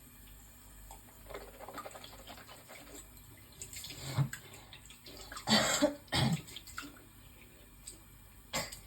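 A woman coughing and gagging in short harsh fits, the loudest pair a little past the middle and one more near the end, as she brings up phlegm.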